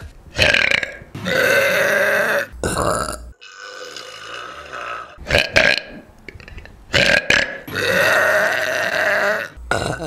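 Several women burping one after another, loud and pitched, with abrupt cuts between them; two of the burps are long and drawn out, over a second each, with shorter ones in between.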